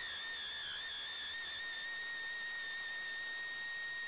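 Air ratchet wrench running: a steady high-pitched whine over a hiss of air. The pitch wavers a little in the first two seconds, then holds steady.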